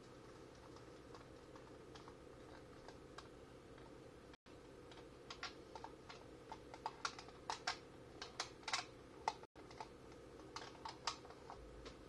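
Faint, irregular light clicks and taps over a steady low room hum, coming in a run of several seconds from about five seconds in.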